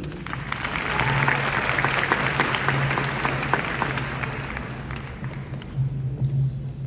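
Audience applauding, swelling within the first second and dying away about five seconds in.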